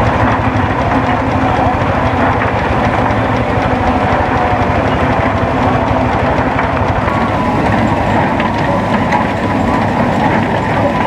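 Steam traction engine running with a fast, steady chuff and mechanical clatter. About seven seconds in, this gives way to the clatter of a stationary hay baler at work.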